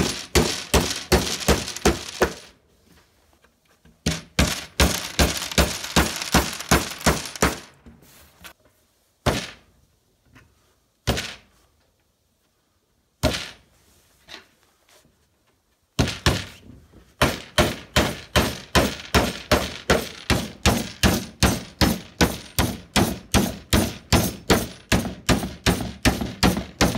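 Hammer driving galvanized ring-shank roofing nails into the finger joints of a spruce hive box. There are quick runs of blows, about three or four a second, broken by a few pauses and single strikes in the middle, then a long steady run of blows from about halfway on.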